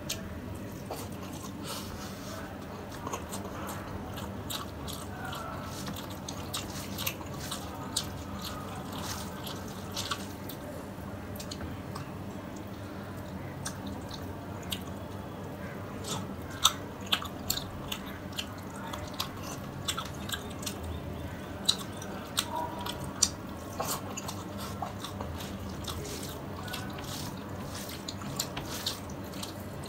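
Close-miked wet eating sounds: fingers squishing and mixing curry-soaked rice by hand, with chewing and sharp wet mouth smacks. The smacks come thicker and louder in the second half.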